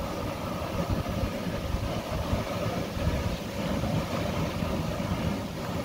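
Large pot of deer soup boiling hard, with a steady rumbling noise and uneven low rumble underneath.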